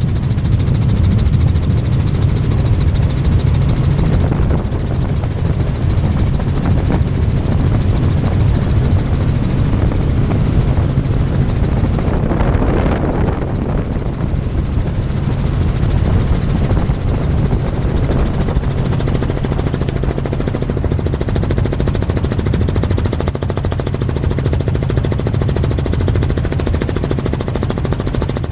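Helicopter in flight: steady, loud rotor and engine noise with a low rumble. A faint high steady whine joins about two-thirds of the way through.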